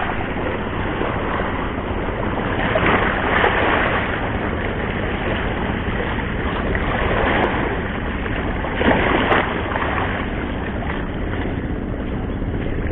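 Steady rushing of wind on the microphone over small sea waves lapping around the wading angler, swelling louder a few times.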